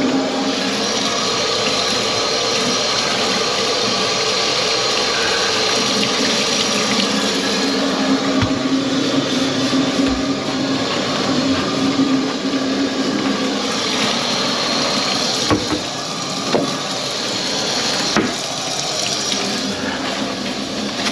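Water running steadily, as from a tap into the sink and down the drain, with a few light knocks.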